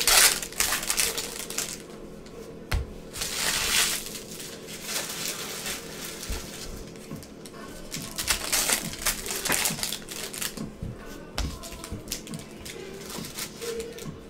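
Foil wrappers of Bowman Chrome baseball card packs crinkling and rustling as they are handled and opened, in several bursts, with light clicks of the cards being handled.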